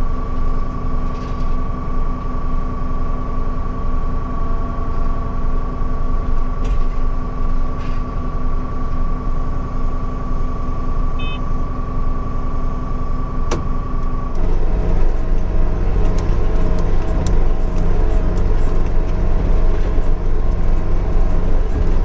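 Case IH 7130 tractor's six-cylinder diesel engine running steadily while towing a field harrow. About 14 seconds in the sound changes to a louder, deeper rumble as the tractor works across the field.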